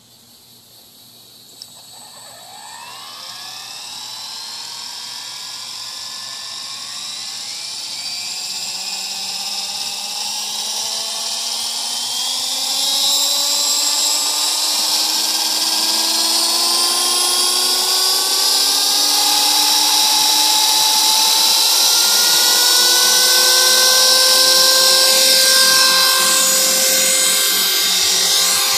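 Electric 450-size RC helicopter (HobbyKing HK 450 Pro TT) spooling up: the brushless motor, gear and rotor whine rises steadily in pitch and loudness from about two seconds in. It levels off at a loud, steady whine around halfway.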